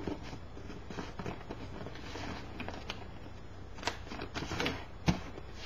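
Sheet of notebook paper rustling and crinkling as it is folded and creased by hand, with a few sharper crackles in the second half.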